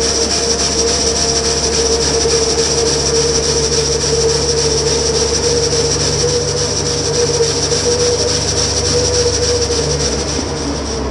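Custom Huddig 1260c backhoe loader's Cummins diesel engine running under load while a hydraulic rotary sweeper brush on its boom scrubs the road surface, with a steady whine over the noise. The brushing hiss drops away near the end.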